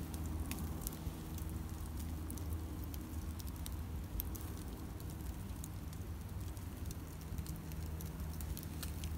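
Wood campfire crackling, with many sharp scattered pops over a low steady rumble.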